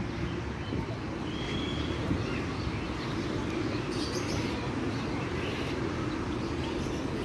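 Steady low outdoor background noise with a few faint bird chirps, including one short high chirp about a second and a half in.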